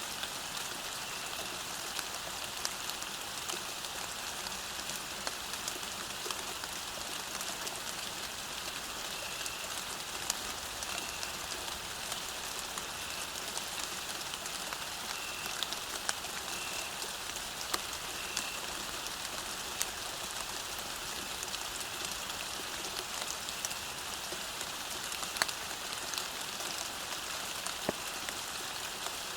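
Steady rain falling on a road, an even hiss with many separate drops ticking sharply. Faint short high chirps recur now and then.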